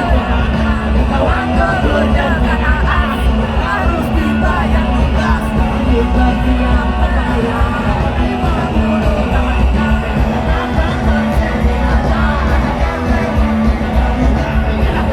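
Loud live rock music: a band playing with heavy, steady bass and voices singing and yelling over it.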